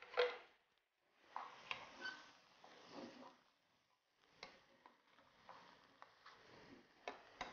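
Wooden slotted spatula stirring food in a non-stick frying pan: faint scrapes and light clicks of wood against the pan, with one louder knock just after the start.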